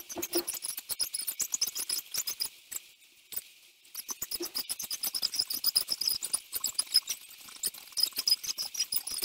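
Sounds of a person exercising on a carpeted floor, played sixteen times fast, so that they come out as a dense run of high squeaky chirps and clicks. There is a short lull about three seconds in.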